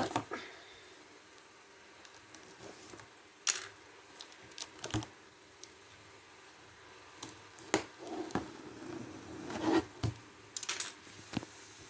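A cardboard shipping package being cut into and pulled open by hand: scattered sharp clicks and short scrapes, with a denser stretch of rustling and scraping about eight to ten seconds in.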